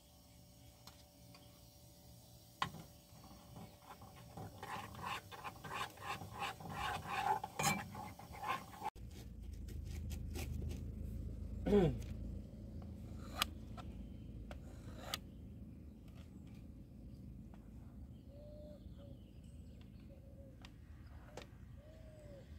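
A spoon scraping and clinking in a saucepan as chocolate powder is spooned in and stirred, over a faint steady hum. About nine seconds in, this gives way to a low wind rumble on the microphone, with a short falling tone and a few light taps.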